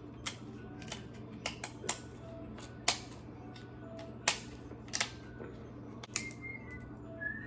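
Crab leg shells being cracked and snapped open by hand: a string of about a dozen sharp, irregular cracks and clicks.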